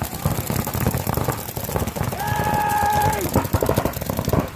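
Paintball markers firing rapid strings of shots, with a shout held for about a second around two seconds in.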